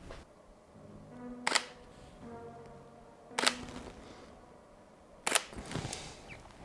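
Camera shutter firing three times, about two seconds apart, as the shoes are photographed.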